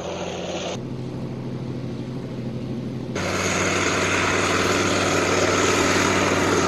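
K-21 infantry fighting vehicle's diesel engine running steadily while the vehicle swims, with the rush of water churned up by its tracks. The water noise and the engine jump louder about three seconds in.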